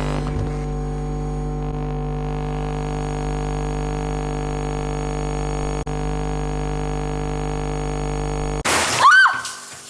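A steady, unchanging hum of several held tones, cut off abruptly a little before the end and followed by a short whistle-like glide that rises and falls in pitch.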